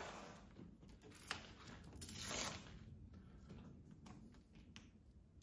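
Bicycle packaging being handled and pulled apart: a few short scraping rustles and a sharp click, the loudest rustle about two seconds in.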